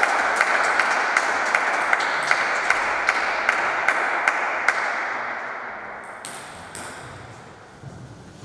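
Table tennis ball bounced over and over between points, sharp ticks about two and a half a second that stop about five seconds in, with a few more near the end.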